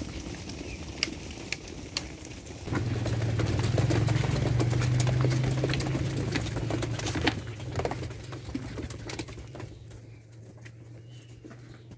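A flock of sheep trotting along a dirt track, their hooves making scattered light taps and clicks. A steady low hum comes in about three seconds in, is strongest for a few seconds and then slowly fades.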